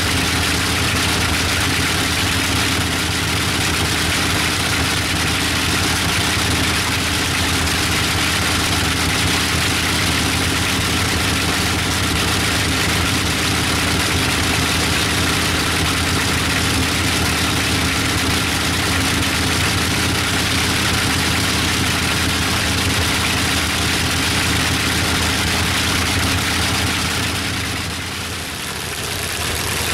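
Bristol Hercules fourteen-cylinder, double-row sleeve-valve radial engine running steadily with its propeller turning. The sound dips briefly near the end.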